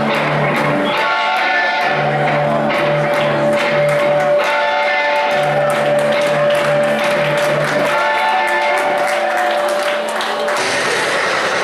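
Wrestler's entrance music over the arena speakers: a guitar-led track with a repeating bass line under a long held note, changing to a new section near the end.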